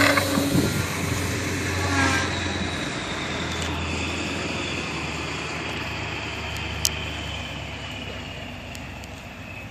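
Thunder Tiger Katana 45 radio-controlled aerobatic plane's engine running at high throttle as it takes off and climbs away, its drone slowly falling in pitch and fading with distance. A single sharp click about seven seconds in.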